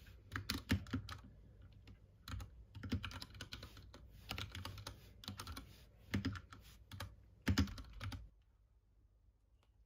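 Typing on a mechanical keyboard: irregular runs of quick key clicks that stop about eight seconds in.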